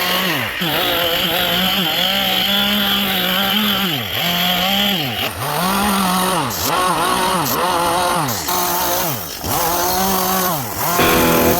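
Chainsaw running at high revs as it carves into wood. Its engine pitch sags and recovers again and again, about once a second, as the chain bites in and comes free.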